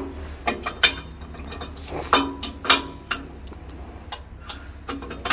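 Steel parking-stand leg of a tractor front loader being folded up by hand: a string of irregular metallic clanks and knocks, one ringing briefly about two seconds in.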